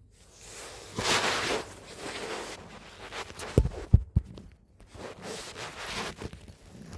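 Domestic cat purring close to the microphone, a rasping sound that comes in waves, loudest about a second in. Three short low thuds come in quick succession around the middle.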